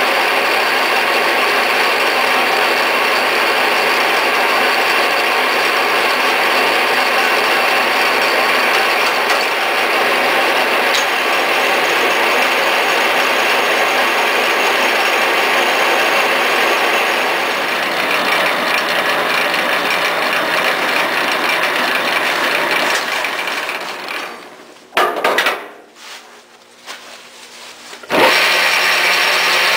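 Vintage Lindgren drill press running, its bit cutting into a wooden beam with a steady, loud grinding of gears and cutting. Near the end the noise drops away for a few seconds, with a knock or two, then comes back abruptly.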